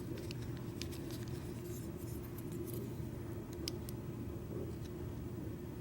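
Scattered light clicks and ticks of tweezers and small pins being picked out of a Schlage deadbolt cylinder during disassembly, over a steady low hum.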